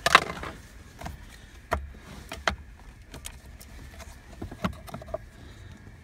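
A loud rustling knock at the start, then scattered light clicks and knocks at irregular intervals from hands handling the plastic steering column trim inside a car.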